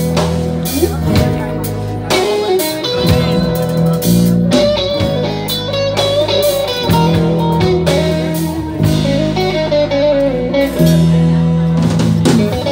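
Live band playing an instrumental break: a guitar lead line over electric bass, acoustic guitar, cello and drums.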